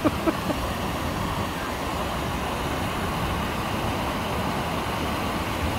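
Steady rushing of water from Ara Falls, an artificial waterfall spilling over rock ledges.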